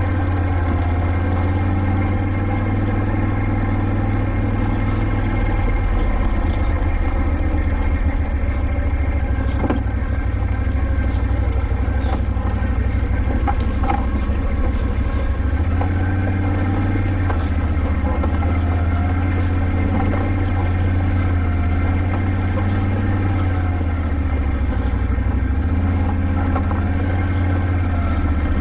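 Can-Am ATV engine running at low trail speed, its pitch rising and falling gently as the throttle is worked over rough ground, with a few faint clicks.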